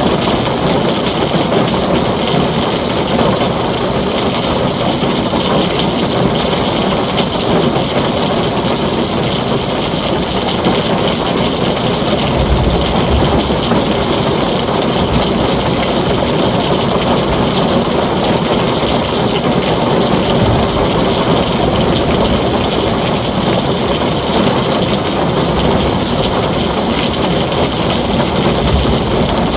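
Heavy rain drumming steadily on a tin roof, a dense, even hiss.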